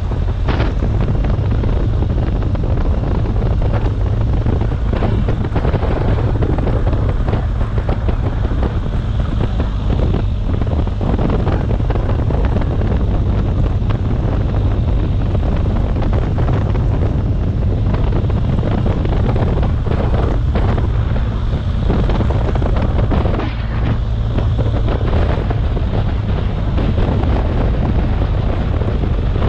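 Wind buffeting an action camera's microphone over the steady running of a BMW R 1250 GS boxer-twin engine on a forest track.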